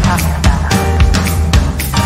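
Music with a steady drum beat over a heavy bass line, a hit about every half second.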